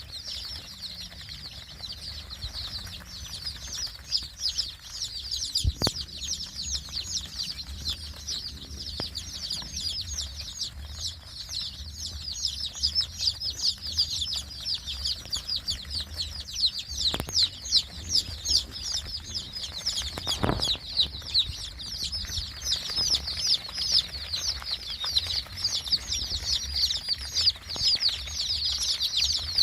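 A large flock of young chicks peeping continuously, many short high chirps overlapping, with a low hum underneath and a couple of short knocks.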